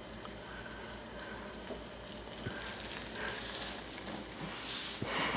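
Omelette frying in a buttered pan: a faint, steady sizzle with a few light clicks.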